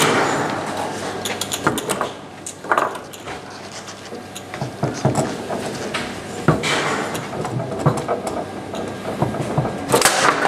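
Table football being played on a Tecball foosball table: the hard ball clacking off the plastic men and the table walls, and rods knocking, with several sharper shots spread through.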